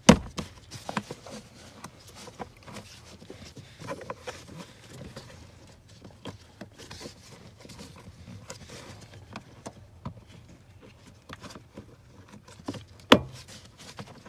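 Plastic footwell trim panel being worked into place by hand: scattered clicks, knocks and rubbing of plastic. There is a sharp knock right at the start and another, the loudest, near the end, fitting the panel's clips popping in.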